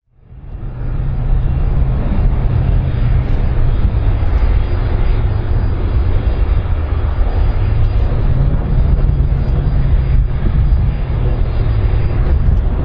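Large aircraft's engines running: a loud steady rumble, strongest in the deep low end, that fades in over the first second.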